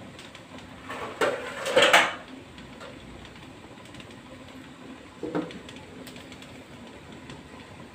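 Metal clanks of an aluminium lid being handled and set onto a wok: a louder clatter about one to two seconds in, then a shorter clink about five seconds in as the lid goes on.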